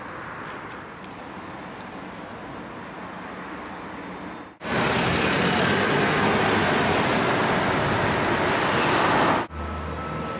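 City street noise with traffic, in three clips joined by hard cuts; the middle stretch of about five seconds is much louder, a dense, even rush of noise.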